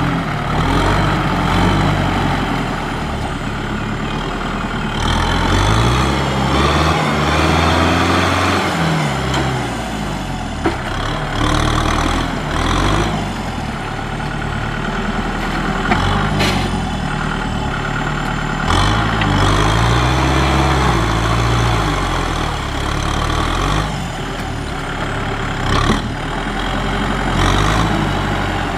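Kubota M6040SU tractor's four-cylinder diesel engine running under load as it drives through deep mud pushing a front blade, its pitch rising and falling a few times as the revs change. A few short sharp knocks stand out over the engine.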